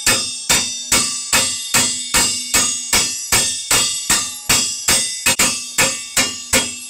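Two hammers striking a wrench on a seized nut on an old church bell's axle, blows alternating at about two and a half a second, with a metallic ring that carries between them. The nut is being shock-loaded to break it loose.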